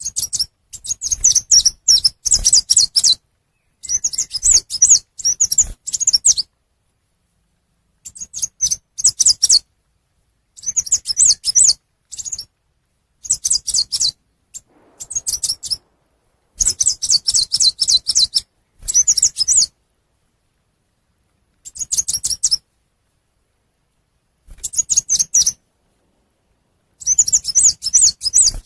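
Recorded song of the chim sâu xanh, a small songbird: rapid, very high chirping phrases of one to three seconds each, broken by dead-silent gaps. It is played as a decoy call to lure wild birds into traps.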